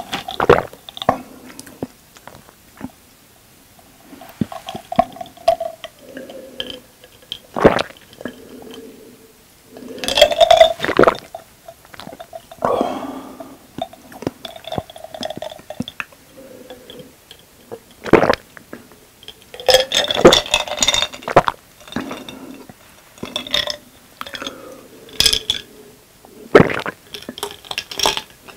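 Ice cubes clinking against a glass jar mug of cola as it is handled and drunk from, with sharp clinks throughout and gulping near the end. A few short burps come between the sips.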